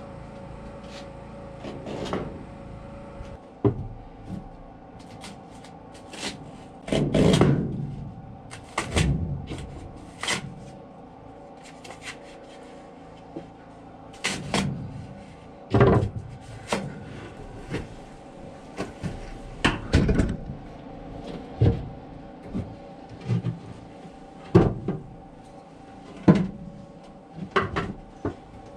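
Irregular knocks, bumps and scrapes of wood and metal being handled close by, with a longer drag or scrape about seven seconds in, over a faint steady hum.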